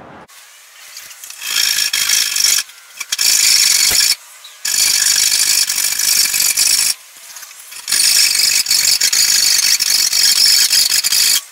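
A saw cutting through the top of a wooden brace on a plywood boat frame. It comes in four bursts, the first two about a second each and the last about three seconds, with short pauses between.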